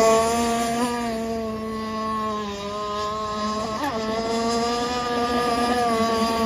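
Gas-engined RC boat running at speed, a steady high engine note that dips in loudness after the first second and wavers briefly in pitch about four seconds in.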